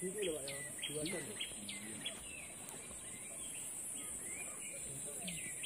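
A steady high insect drone over hillside forest, with a bird giving short, sharp calls that drop in pitch, several in the first two seconds and again near the end. Faint voices are heard early on.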